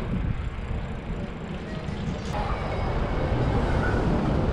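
Low rumble of wind on the microphone of a cyclist's camera mixed with street traffic, with cars and pickup trucks running close by. It grows louder about halfway through.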